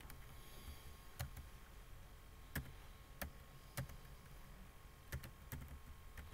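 Computer keyboard keys tapped slowly one at a time, about seven separate faint clicks spaced unevenly, roughly a second apart.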